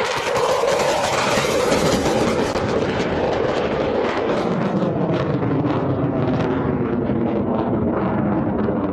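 Jet noise from a Eurofighter Typhoon's twin EJ200 turbofans at high power as it flies past low, a loud, continuous, rough sound with a crackle running through it.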